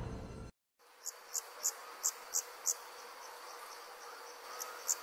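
Crickets chirping, a regular run of short high chirps about three a second, starting about a second in, pausing briefly in the middle and picking up again near the end. A music swell fades out in the first half-second, and a faint steady hum runs under the chirps.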